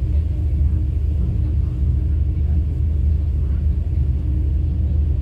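Passenger train moving through a station, heard from inside the carriage: a steady low rumble with a faint steady hum above it.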